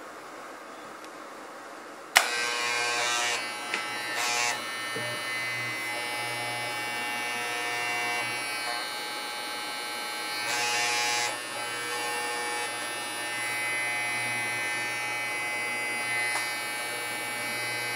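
Wahl Home Pro Basic electric hair clipper switched on with a click about two seconds in, then running with a steady loud electric buzz from its vibrating blade motor. The buzz swells louder briefly a few times.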